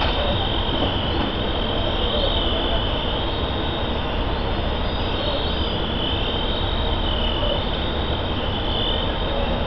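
Fire engine running at the scene, its engine and pump giving a steady low rumble under a high whine that wavers slowly up and down.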